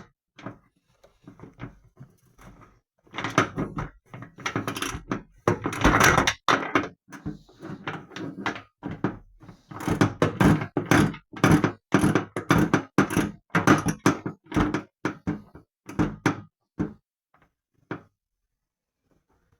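Irregular knocks, clicks and clunks of a ratchet wrench and metal fittings as a washer-dryer's shock absorber is unbolted and worked free. They come in quick clusters, then thin out near the end.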